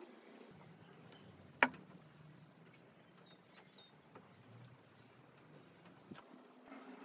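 Hands handling the parts of a mahogany-and-aluminum hat hanger: one sharp click about a second and a half in, then a few faint taps. A bird chirps briefly in the middle.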